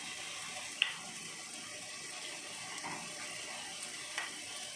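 A metal spoon stirring tamarind pulp in a small glass bowl, scraping and clicking lightly against the glass a few times over a steady hiss.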